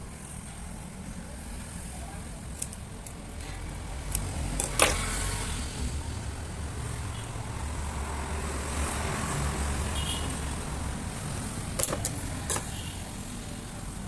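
A low rumble that builds over several seconds and then eases off, with a few sharp clicks, the loudest about five seconds in.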